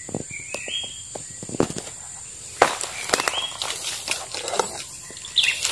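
Forest ambience: short rising bird chirps over a steady high insect drone, with scattered clicks and a sharper snap a little before halfway. Near the end a bird calls several times in quick succession.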